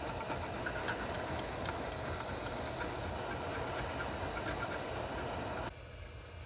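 Heat gun blowing steadily, with small clicks and scrapes as a flat screwdriver picks at old glue on the amplifier circuit board; the blowing cuts off abruptly near the end.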